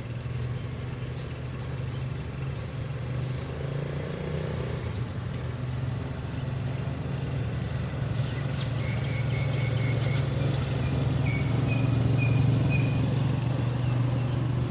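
A motor vehicle's engine running with a low steady drone that grows gradually louder. In the second half a bird gives a quick run of repeated chirps.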